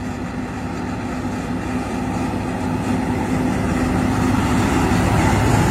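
Truck engine running with a steady low drone that grows slowly louder.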